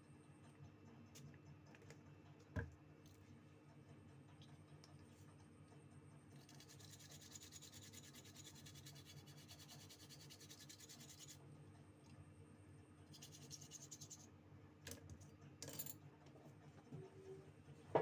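Faint, fast scrubbing of a brush over a mobile phone's circuit board, cleaning off water-damage corrosion with thinner. It runs for about five seconds midway and again briefly a little later, with a few small clicks and taps.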